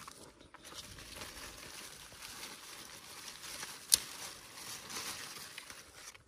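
Rustling of cucumber vines and leaves being pushed through and handled while picking, with one sharp snap about four seconds in.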